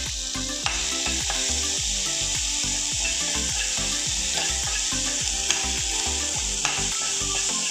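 Chopped onion and tomato sizzling in hot oil in a frying pan, with a steady frying hiss, while a spatula stirs and scrapes them around the pan. The sizzle cuts off suddenly at the end.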